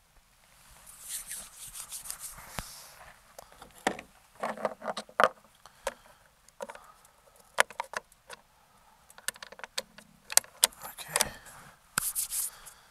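Irregular sharp clicks and knocks of an air rifle and its scope being handled and adjusted, with a short high hiss about a second in.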